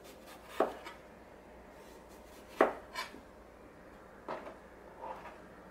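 Chef's knife cutting through eggplant and striking the cutting board: about five separate slow cuts spread a second or so apart, the sharpest about two and a half seconds in.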